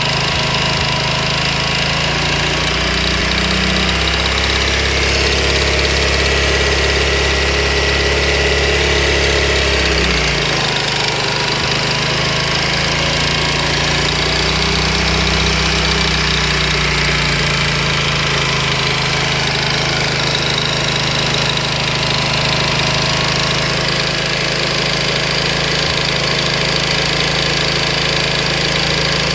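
Honda VT250 Spada's V-twin engine running cold with an abnormal mechanical noise, which the owner finds most noticeable around 3000 rpm and which goes away once the engine is warm. The revs rise a few seconds in, hold, drop back about ten seconds in, then rise again and stay steady.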